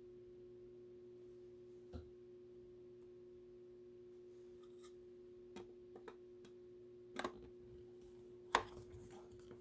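Quiet room with a steady faint hum and a few soft taps and clicks scattered through it, the loudest of them near the end.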